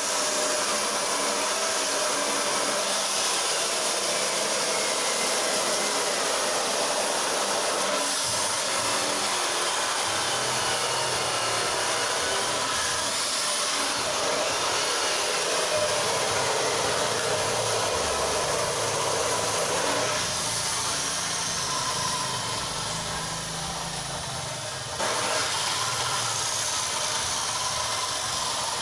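Feed pellet machine running, a loud steady mechanical hiss-like noise whose character changes suddenly three times.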